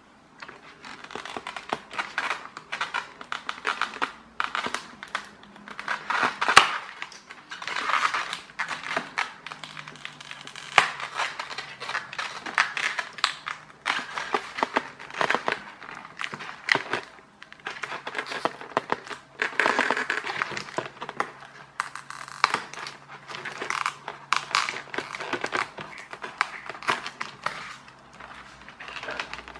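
Hands working the wiring and receiver board of a foam RC flying wing: irregular crinkling, rubbing and small clicks of wires, plastic clips and polystyrene foam being handled.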